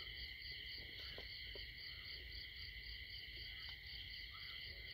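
Faint night chorus of insects, likely crickets: several steady high-pitched trills running together, one of them pulsing about four times a second, with a few faint ticks or rustles.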